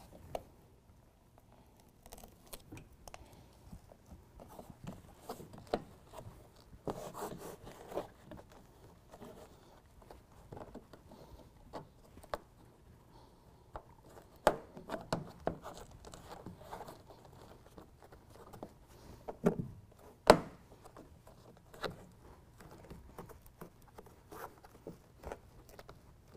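Hands pressing, rubbing and patting a fabric-faced BedTred Ultra bed liner panel against the truck bed wall to seat it on its adhesive and hook fasteners, with scattered scraping and a few sharper knocks, the loudest in the second half.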